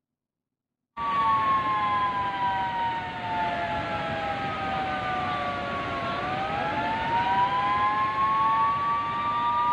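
Warning siren wailing, starting about a second in, its pitch sliding slowly down and then rising back up, over a steady rush of water pouring through open dam floodgates.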